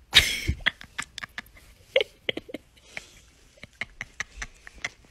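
Pet raccoon chittering: a quick irregular run of short, sharp clicks and brief chirps, with a short rustle at the start.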